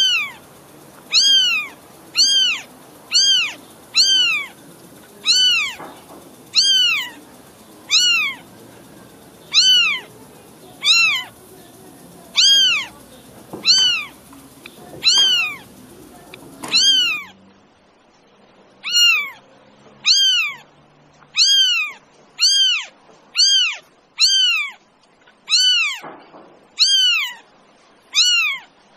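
A cat meowing over and over, a short high meow about once a second, each one rising then falling in pitch and nearly identical to the last. There is a short gap about two-thirds of the way through, after which the faint background hiss is gone.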